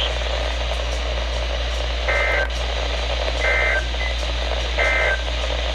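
Three short buzzy data bursts from a NOAA Weather Radio broadcast, about 1.4 seconds apart, over steady radio hiss and a low hum. They are the SAME end-of-message code that closes the Required Weekly Test.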